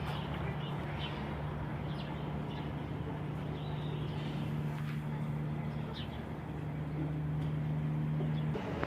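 A steady low machine hum that cuts off near the end, with scattered faint, short, high chirps over it.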